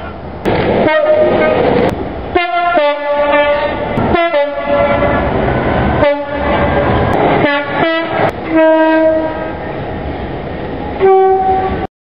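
A rapid run of British diesel locomotive two-tone horn blasts, among them a Class 66, each short recording cut straight into the next over the rumble of approaching trains. The sound cuts off abruptly just before the end.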